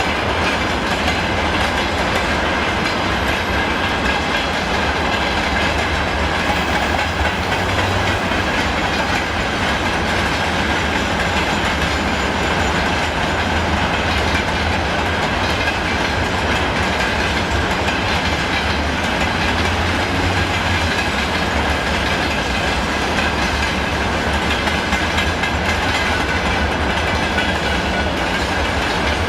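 A train running on the rails with a steady rumble and the clickety-clack of wheels over rail joints, unbroken throughout.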